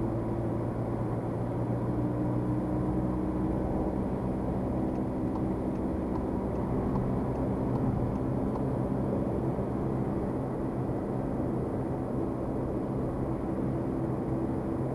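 Car engine and tyre noise heard from inside the cabin while the car accelerates to motorway speed: a steady rumble, its engine note shifting in pitch a few seconds in.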